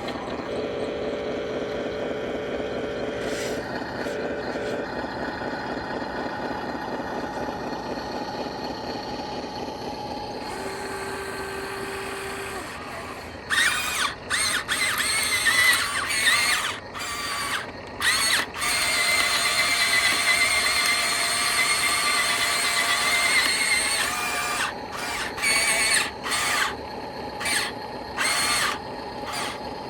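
Small electric motors of radio-controlled model construction machines running with a steady hum. From about halfway through they give way to loud, high-pitched motor whines that start and stop again and again as the machine's functions are worked.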